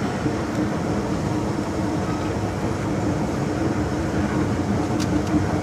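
Hong Kong MTR M-Train heard from inside the carriage while running: steady wheel-on-rail rumble with a low steady hum, and a light click near the end.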